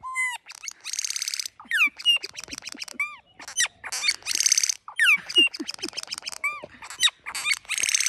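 Male Australasian figbird singing at close range: a rapid jumble of short whistled slurs, clicking rattles and harsh rasping notes, with a louder rasping burst about every three seconds.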